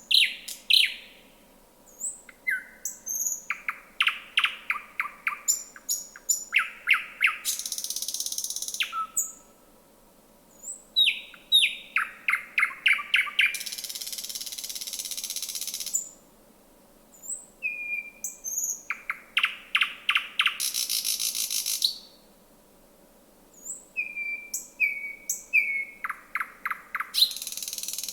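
Thrush nightingale singing: repeated song phrases of sharp whistled notes and fast runs of clicking notes, each phrase closing with a loud, harsh rattle, with short pauses between phrases.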